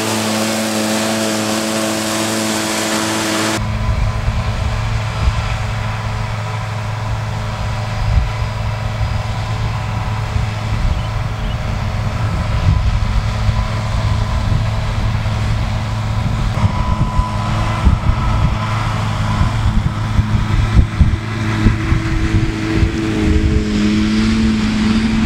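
Same Iron 150 tractor engine running steadily under load while its Krone EasyCut 3201 CV disc mower-conditioner cuts grass. The sound changes suddenly about three and a half seconds in, from a close, steady engine and mower hum to a more distant, rumbling sound with a few loud knocks, before the steady engine tone comes back near the end.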